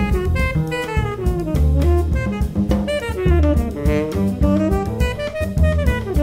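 Small jazz group playing: a saxophone plays a quick, busy line of notes over double bass and drum kit, with frequent cymbal and drum strikes.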